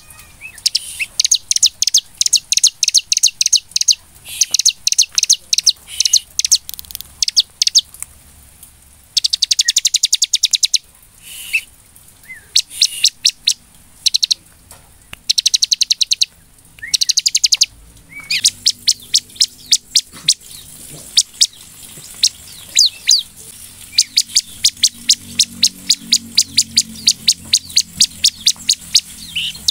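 Bar-winged prinia (ciblek) in vigorous song: bursts of rapid, high, dry chirping notes about a second long with short pauses between them, running into a near-continuous fast series in the second half.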